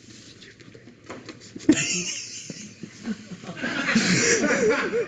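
People laughing, breaking out suddenly about a second and a half in and growing louder toward the end.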